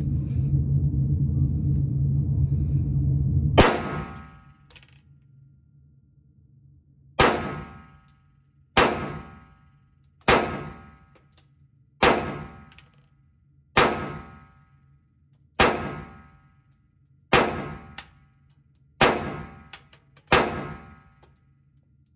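Ten slow-fire pistol shots from a handgun in an MCK carbine conversion kit, each a sharp crack with a ringing tail, spaced about one and a half to two seconds apart after a longer pause following the first. A steady low hum runs until the first shot and then drops away.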